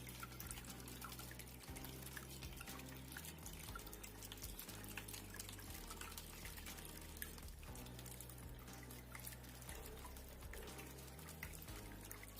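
Faint water trickling and dripping from a small tabletop cement waterfall fountain, with many small drips and splashes, over soft background music.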